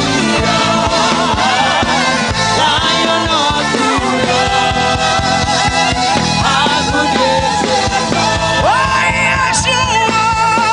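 Gospel worship music: a voice singing over a band accompaniment with a steady beat.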